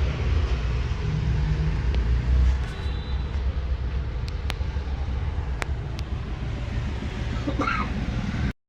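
Steady low rumble with a hiss over it, broken by a few sharp clicks, cutting off suddenly near the end.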